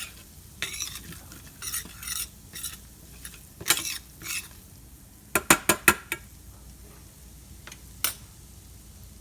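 Curry spice mix frying in olive oil in a pan, stirred with a utensil: repeated scraping strokes over a faint sizzle. A little past halfway come five quick sharp clinks of the utensil against the pan, and one more near the end.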